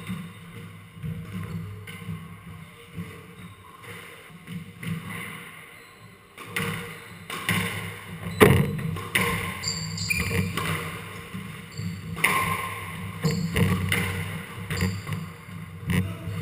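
Squash ball knocking off rackets and the court walls, a string of sharp knocks with the loudest about eight and a half seconds in, and short high squeaks of shoes on the wooden court floor.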